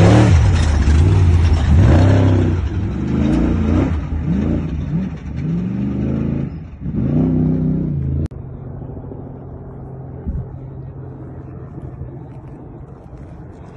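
Off-road race truck passing close by on a dirt trail, its engine revving up and down in several loud surges as it goes. About eight seconds in the sound drops off suddenly, leaving a faint low rumble.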